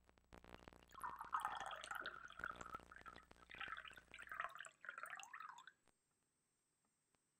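Red wine poured from a glass bottle into a wine glass, glugging and splashing for about five seconds, then stopping.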